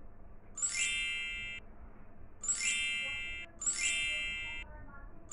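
Sparkly chime sound effect from a children's colouring app, played three times as areas of the picture are filled with colour. Each chime rings for about a second with a glittery top.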